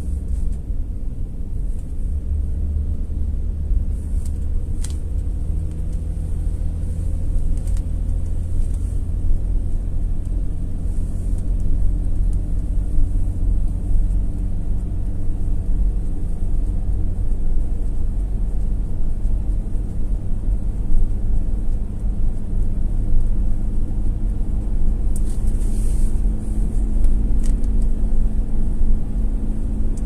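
Car driving on a paved road, heard from inside the cabin: a steady low rumble of engine and tyres, with a few faint clicks.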